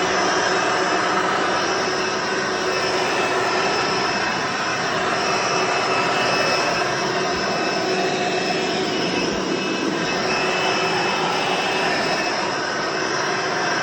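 Early-to-mid-1990s Hoover Encore Supreme vacuum cleaner running steadily as the floor is vacuumed: an even rushing noise with a faint steady whine, swelling and dipping slightly.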